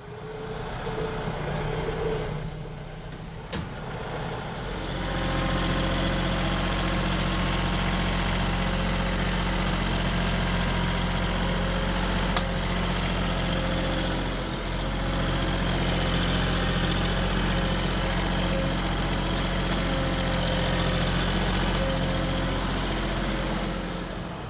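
Compact diesel tractor engine running at a steady speed. It comes in about four and a half seconds in, after a quieter, changing stretch.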